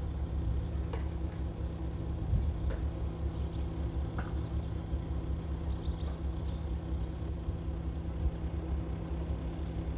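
Steady low hum of running plant machinery with a stack of even low tones, and a few faint clicks as the inverter keypad buttons are pressed.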